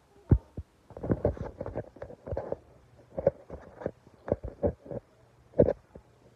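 Handling noise from a phone being moved and carried: irregular bumps, knocks and rubbing on its microphone, with a sharp knock just after the start and another about five and a half seconds in.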